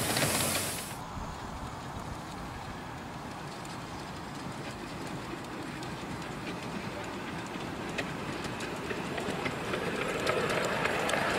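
Hiss of escaping steam from a miniature live-steam locomotive, cutting off about a second in. It is followed by the steady rumble of the train running on the track, with faint rail clicks.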